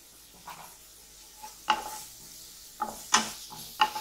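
Wooden spatula scraping and knocking against a nonstick pan as chopped onions and curry leaves are stirred, with a soft sizzle of frying underneath. The sharp strokes begin a little under two seconds in and come several times.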